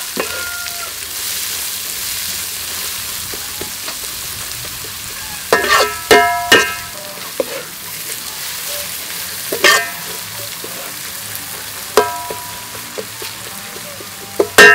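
Chopped lemongrass, chili and garlic sizzling in oil in an aluminium wok while being stir-fried, with a steady hiss. A utensil strikes the wok several times with ringing metallic clangs, a cluster of three about five and a half to six and a half seconds in and the loudest near the end.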